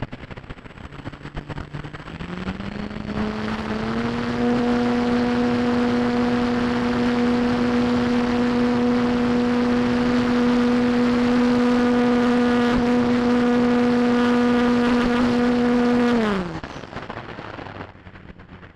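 Radio-controlled model airplane's motor and propeller: a steady whine rises in pitch over about two seconds as the throttle opens, holds for a long stretch, then falls away and cuts off about three-quarters of the way through. Wind rushes over the microphone before and after.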